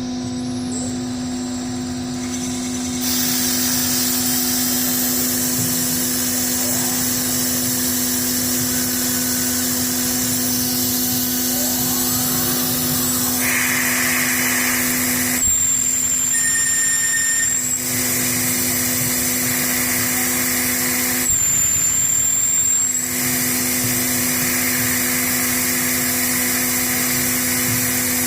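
DIY CNC lathe turning duplex stainless steel with an Iscar insert: a steady machine hum with a hissing cutting noise that gets louder about three seconds in. Twice the hum drops out briefly and a high whine takes its place.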